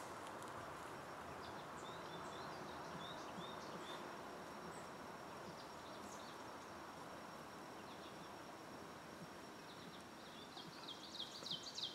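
Quiet outdoor background hiss with small birds chirping: a short series of chirps a couple of seconds in, and a quicker, louder run of repeated chirps near the end. A faint steady high tone sits under it throughout.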